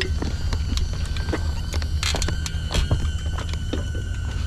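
Scattered clicks and knocks of a folding e-bike's pedals and hinges being folded up, over the steady high whine of a small camera drone's propellers and a low wind rumble.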